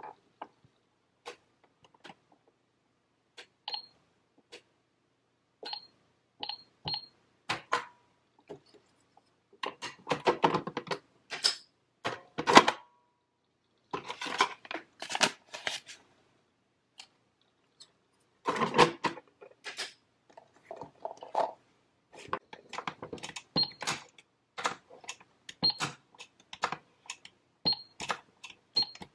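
Plastic toy cash register and play-food pieces being handled: scattered sharp clicks and taps, with denser clattering about a third of the way in and again past the middle. Some clicks carry a short high ping.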